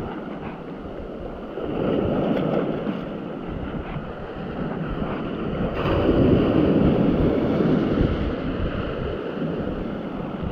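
Wind and sea wash around a small boat on open water: a steady rushing noise that swells twice, briefly about a second and a half in and more strongly from about six seconds to nine.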